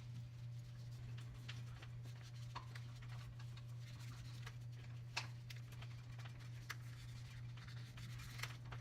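Faint, scattered clicks and taps of small bicycle parts being handled during a repair, over a steady low hum.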